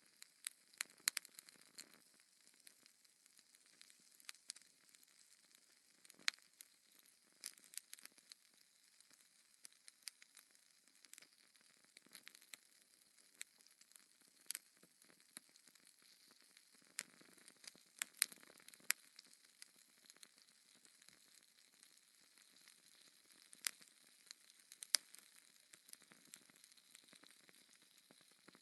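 Wood fire crackling in a fireplace: irregular sharp pops and snaps over a soft hiss, with a few louder pops scattered through.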